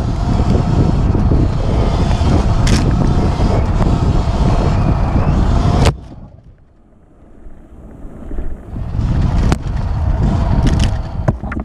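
Wind buffeting the helmet-camera microphone and tyres rumbling over dirt singletrack as a Sur Ron X electric dirt bike rides along, with a faint steady motor whine under it. About six seconds in the wind noise drops away sharply, leaving quieter trail rumble and a few sharp knocks from the bike over bumps.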